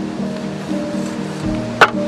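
A cleaver chops once, sharply, into a raw whole chicken near the end, over steady background music.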